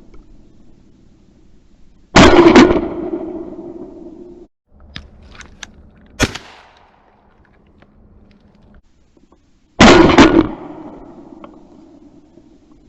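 Two blasts from a 12-gauge Weatherby Element shotgun, about eight seconds apart, each followed by an echo that fades over a couple of seconds. A much fainter sharp crack comes between them, about six seconds in.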